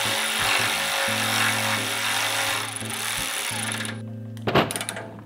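Electric ratchet running, driving a bolt home into a bumper mounting bracket, for about four seconds before it stops. A sharp knock follows about four and a half seconds in.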